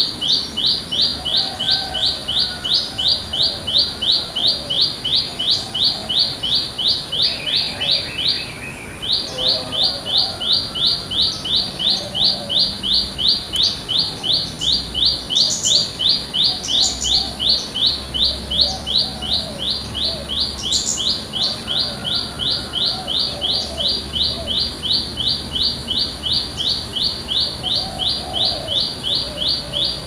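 Prenjak lumut calling in a fast, even series of sharp high notes, about three a second, with one short break about eight seconds in. Fainter calls of other birds come in between.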